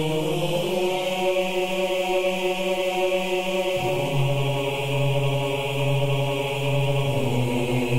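Instrumental intro of a rap track before the rapping starts: sustained droning chords over a steady hiss. The bass note drops about four seconds in, and the chord changes again near the end.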